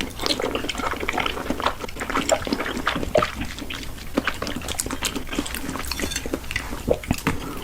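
Close-miked wet mouth sounds of eating: a continuous run of small sticky smacks and squelching clicks.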